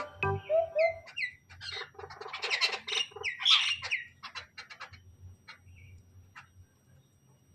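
Common mynas calling: a burst of harsh chattering and squawks for about three seconds, then scattered single calls that grow fainter.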